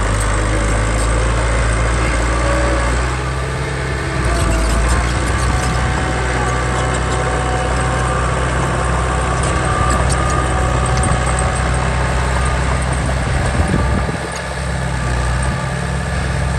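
Heavy diesel engine of a construction machine running steadily with a low drone, easing briefly twice.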